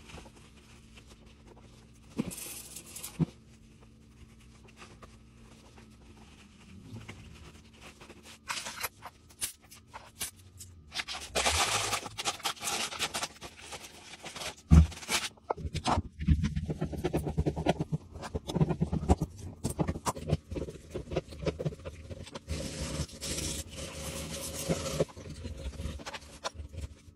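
Hand-work sounds around a toilet flange: a microfibre cloth wiping and scrubbing, plastic wrapping crinkling, and one sharp knock about halfway through.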